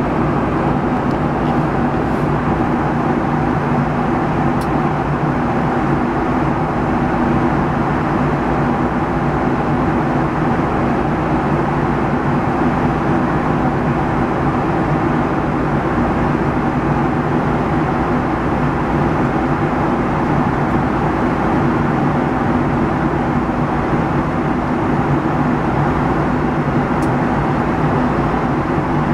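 Steady cabin drone of a Boeing 757-200 in cruise at altitude, heard from inside the aircraft: even rushing airflow and engine noise with a low, constant hum beneath.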